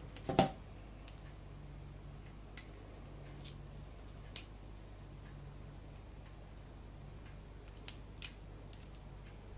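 Metal scope-mount rings and screws being handled: a couple of sharp knocks about half a second in, then scattered light clicks and taps, over a steady low hum.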